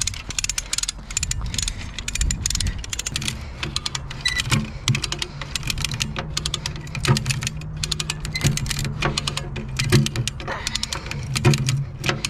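Hand come-along cable puller ratcheting: rapid runs of metallic clicks as its handle is pumped to winch in a snagged magnet-fishing line. A low steady hum sits underneath from about three seconds in.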